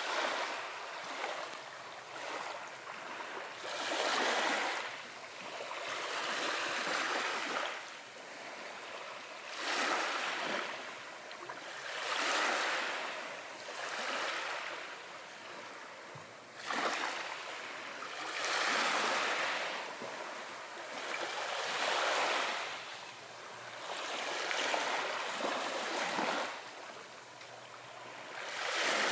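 Small ocean waves washing in one after another, a wash of surf that swells and fades about every two to three seconds.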